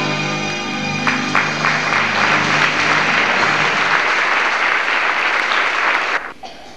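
A song ends on a held chord with its accompaniment while an audience bursts into applause about a second in. The clapping carries on for about five seconds and cuts off suddenly near the end.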